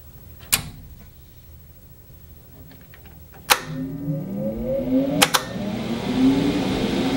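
A switch clicks about half a second in. About three seconds later the CNC control cabinet's main power pushbutton clacks and a motor starts spinning up with a rising hum, two quick relay clicks follow, and a steady fan whoosh settles in as the cabinet powers up.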